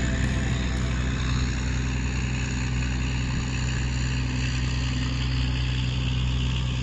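Diesel engine of a tugboat towing a string of cargo barges, running steadily with a low, even drone.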